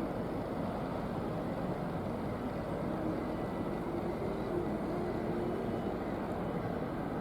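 Steady low engine rumble with no distinct events, and a faint hum coming in about three seconds in and fading out again.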